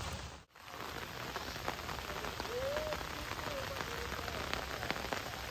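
Heavy monsoon rain falling steadily, with many small individual drop hits. The sound cuts out briefly about half a second in.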